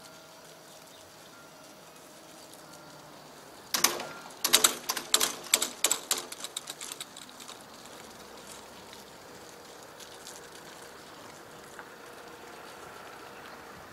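Level-crossing barrier booms coming down onto their rests: a sudden, rapid clatter of sharp knocks about four seconds in, dying away over roughly three seconds as the booms settle.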